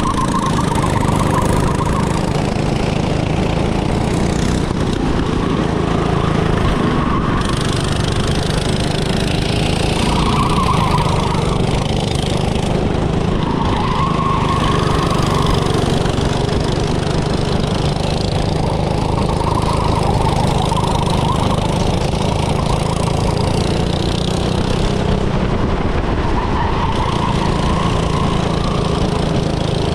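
Go-kart engine running steadily, with a higher note that swells and fades every few seconds.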